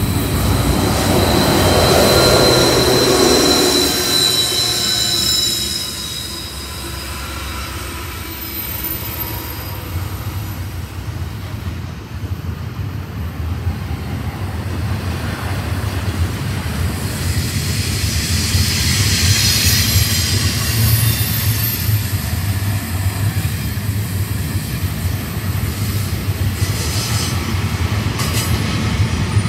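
BNSF double-stack container train rolling past on curved track: a steady rumble of the cars, with wheel flanges squealing high on the curve. The squeal is loudest in the first few seconds, as a diesel locomotive passes, and comes back about two-thirds of the way through.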